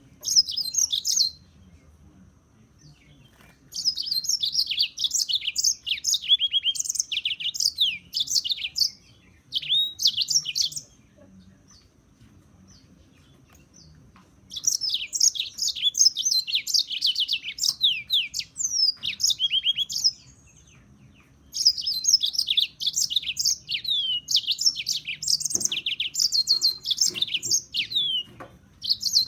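A serin singing: long phrases of rapid, high twittering and trills, each lasting several seconds, broken by short pauses.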